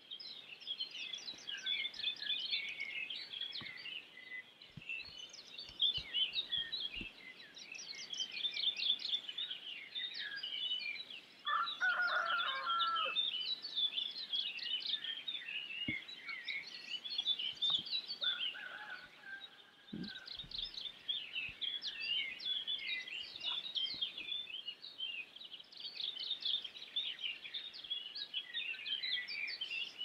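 A dense chorus of many small birds chirping and twittering rapidly without pause. A louder, lower call from another bird stands out about twelve seconds in, and a shorter one comes about six seconds later.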